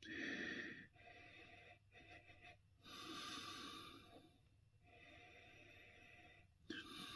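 A man drinking lager from a glass tankard: faint breathing and gulping in several short stretches with brief pauses between them.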